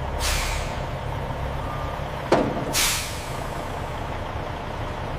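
Truck engine running with a low rumble while its air brakes hiss twice, about two and a half seconds apart, with a sharp clunk just before the second hiss.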